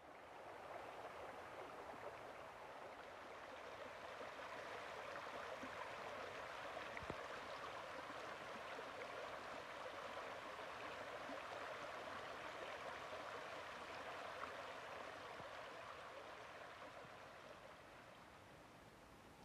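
Small forest stream flowing: a steady rushing babble of water. It fades in at the start and grows quieter near the end.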